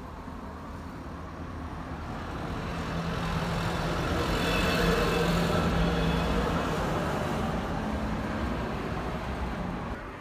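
A car passing on the road, its engine and tyre noise swelling to a peak about halfway and then fading.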